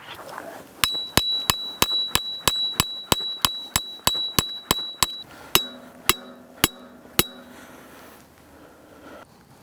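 A hammer striking metal about sixteen times, roughly three blows a second, with a ringing metallic note behind the first dozen. The last few blows come slower and duller, typical of driving a metal tent stake into the ground.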